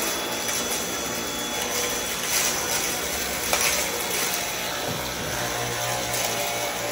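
Dyson V8 cordless stick vacuum running steadily on its regular power setting, sucking up rock salt from the floor, with a few brief crackles as grit goes up the wand.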